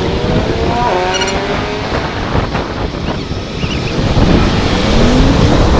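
Cars passing on a busy multi-lane road, engine notes rising and falling in pitch as they go by, over a low rumble of wind on the microphone.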